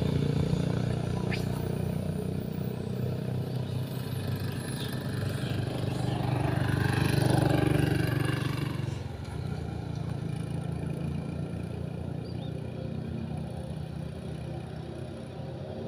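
Motor vehicle engine passing by: a steady hum that grows to its loudest about seven seconds in, drops away sharply at about nine seconds, and carries on lower after that.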